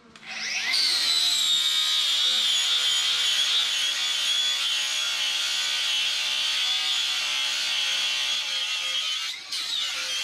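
Angle grinder spinning up with a rising whine, then grinding steel at a steady high pitch. It dips briefly near the end, then carries on.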